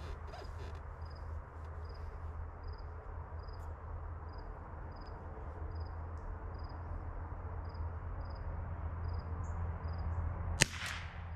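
A single .22LR rifle shot from a Ruger Precision Rimfire with a Shaw barrel, one sharp crack near the end. Before it, a faint high chirp repeats about twice a second.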